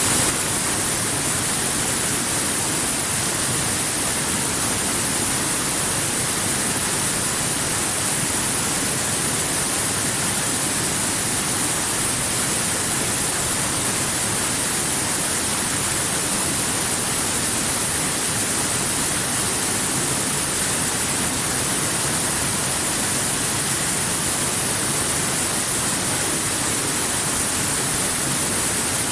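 Waterfall: a steady, unbroken rush of falling water, with a bright hiss strongest in the highs.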